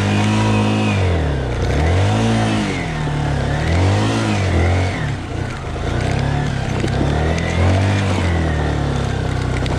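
Yamaha motorcycle engine under load on a steep rocky climb, its revs rising and falling again and again, about five times, as the throttle is opened and eased.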